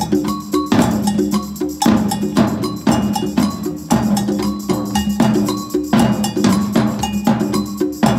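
A percussion ensemble improvises a steady rhythmic groove, with a heavy accented stroke about once a second and many lighter strokes between. Short pitched, ringing notes repeat through it.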